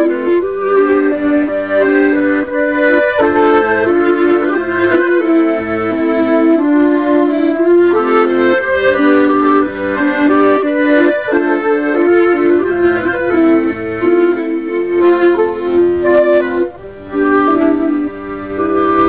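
Trio of flute, clarinet and accordion playing a waltz. There is a brief dip near the end, after which the playing carries on more softly.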